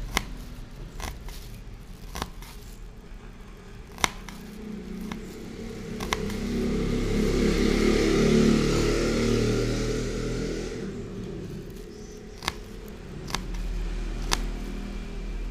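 Small kitchen knife slicing onion pieces on a plastic cutting board, with sharp single taps of the blade on the board every second or two. In the middle a rush of noise swells and fades over several seconds, louder than the taps.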